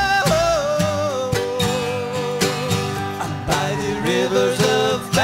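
Live acoustic string band playing a reggae song, with acoustic guitars and upright bass.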